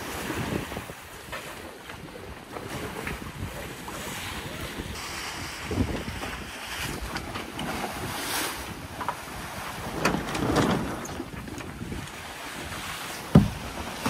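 Wind buffeting the microphone over the rush of sea water along a sailing catamaran's hulls, with a few knocks from lines and sail gear being handled on the foredeck; a sharp thump near the end is the loudest sound.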